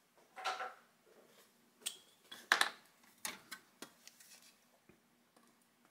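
Sprue cutters snipping thick hard-plastic terrain pieces off their sprue: several scattered sharp clicks with plastic rattling and handling between them, the loudest about two and a half seconds in.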